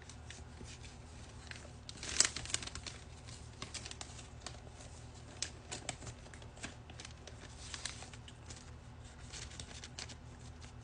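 A vinyl record and its paper inner sleeve being handled and worked into place, with scattered paper rustling, sliding and light taps. The loudest is a sharp rustle about two seconds in.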